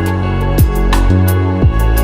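Background music with a steady electronic beat: a deep kick sweeping down in pitch about once a second under sustained synth chords and regular hi-hat ticks.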